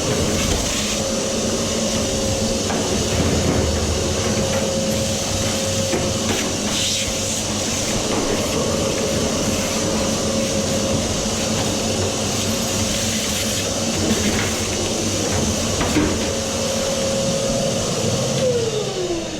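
Vacuum cleaner running steadily with a motor whine and rushing suction, its nozzle knocking now and then against the dryer's metal inside. Near the end it is switched off and the motor winds down with a falling whine.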